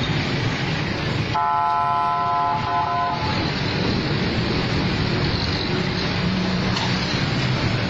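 Steady street traffic noise, with a vehicle horn sounding once, a steady tone lasting under two seconds, beginning about a second and a half in.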